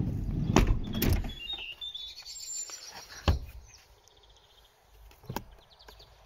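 A minivan seat being folded and shifted: a rattling slide with clicks for the first second, then single clunks about three and five seconds in as it locks in place.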